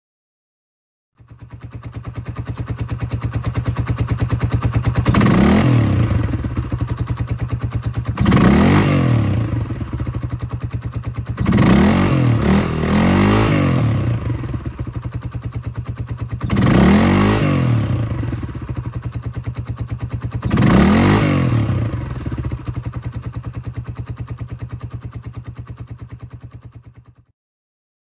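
Suzuki Grasstracker Big Boy's 250 cc single-cylinder engine idling through a Delkevic exhaust, blipped six times up to about 5,000 rpm, each rev rising and dropping back to idle. The exhaust leaks at the joint between pipe and silencer.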